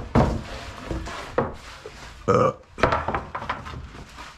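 Several sharp knocks and clattering from building materials being handled and moved about, with a louder ringing clank about two seconds in.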